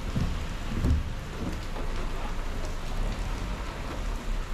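Rain pattering steadily on a car's bonnet and the GoPro housing mounted on it, over a low rumble from the moving car, with two stronger low rumbling surges near the start, the louder about a second in.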